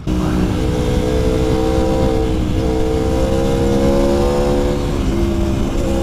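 Aprilia Tuono V4 Factory's V4 engine running under acceleration on the road, its note climbing steadily and dipping briefly twice, about two and a half and five seconds in, over wind rush.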